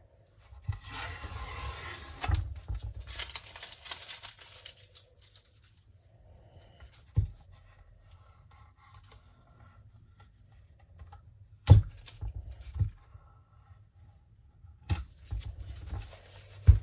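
Hands working on a cured resin piece: a rough scraping, tearing noise for about four seconds, then several sharp knocks as the piece and tools are handled and set down.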